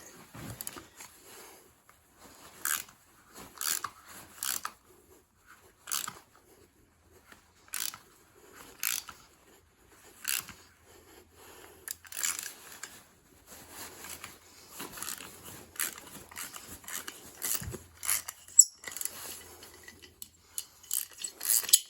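Helicoil thread-repair tap being ratcheted through a spark plug hole, cut dry without lubricant: a dozen or so irregular short bursts of crunching, scraping metal and clicks as the tap is worked back and forth.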